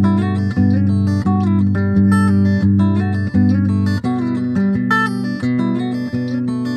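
Background music led by guitar, with plucked notes over a steady low bass line that shifts to a lower chord about four seconds in.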